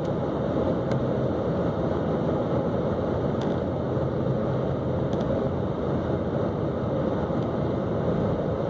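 Steady road, tyre and engine noise heard inside a car's cabin while cruising at about 85 mph on the highway.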